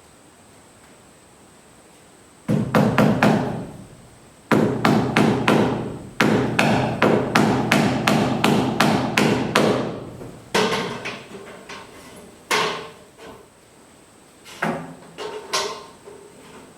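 A hammer striking in quick runs of blows, about three or four a second, with short pauses between runs and a few slower, lighter strikes near the end.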